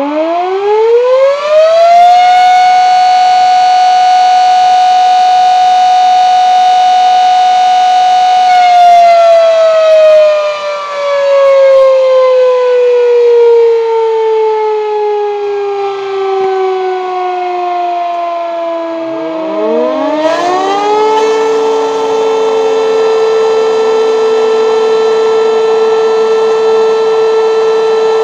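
Sad 1.5 kW electric rotary siren winding up to a steady high tone, holding it for about six seconds, then winding down slowly. About twenty seconds in, a larger Sad 4 kW rotary siren winds up over the fading tail of the first to a lower steady tone, which it holds.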